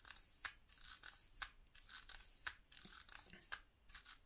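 Curta mechanical pocket calculator being cranked round turn after turn, a sharp click about once a second with softer clicking and rasping of its gears between. Each turn adds the number set on the sliders into the result register, repeated addition that does the multiplication by 8.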